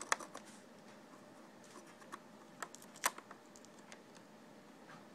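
Light clicks and taps from handling wires and plastic parts inside the opened case of a GPX under-cabinet TV: a quick cluster right at the start, a few scattered ones after, and the sharpest click about three seconds in.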